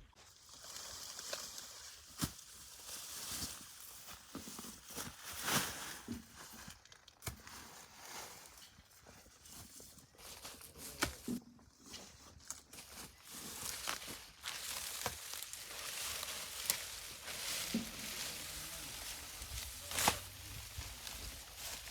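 Irregular rustling and crackling of dry plant material with footsteps, broken by scattered sharp snaps and crunches.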